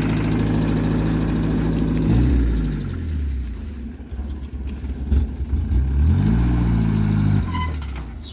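A vehicle engine running steadily, dropping in pitch about two seconds in, rising again near the end and then cutting off.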